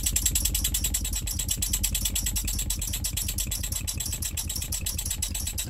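Small model oscillating engines running on compressed air: a rapid, even chuffing of air pulses from the cylinders.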